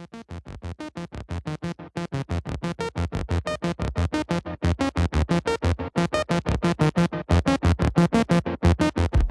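Electronic intro music: a fast, even run of short synthesizer notes, about five or six a second, growing louder toward the end.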